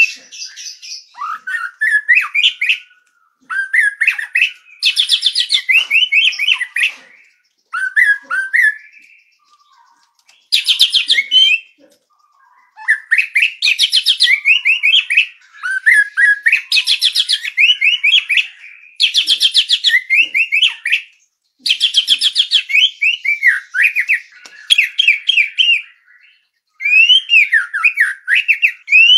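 White-rumped shama (murai batu) singing: loud, varied whistled phrases mixed with fast rattling trills, in bouts of a second or two with short pauses between.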